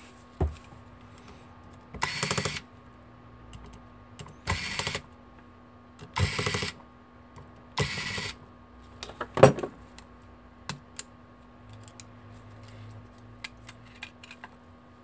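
Electric precision screwdriver running in four short bursts of about half a second each, backing out small screws from a mobile phone's slider frame. A sharp knock follows, then light scattered clicks of small plastic parts being handled.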